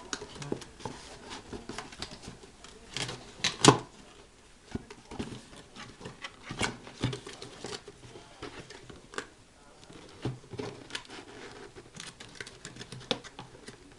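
A parcel being unpacked by hand: irregular rustling of packaging with many light clicks and knocks, and a louder pair of knocks a few seconds in.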